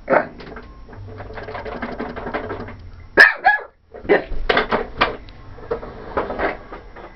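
Corgi barking excitedly, upset by a vacuum cleaner: one bark at the start, the loudest about three seconds in, then a quick run of barks. Between the first two barks, a fast rattling buzz lasts about two seconds.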